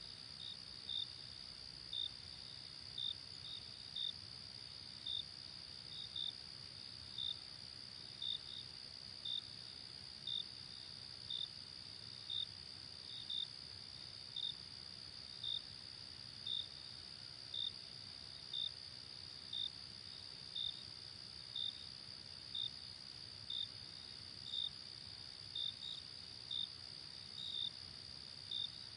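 Night insects: a steady high-pitched trill, with a louder cricket chirp about once a second, now and then doubled.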